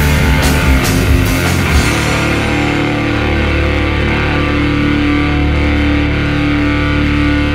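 Heavy stoner rock from a guitar band. Drums and cymbals crash for about the first two seconds, then stop, leaving a held electric guitar chord ringing out over a sustained low bass note.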